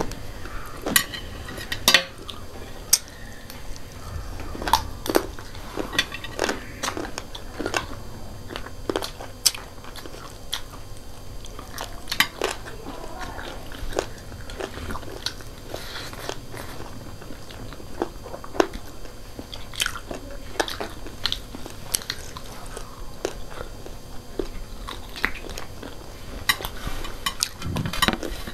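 Eating sounds: chewing and mouth smacks with many sharp, irregular crunches as two people eat spicy instant noodles and fried chicken feet.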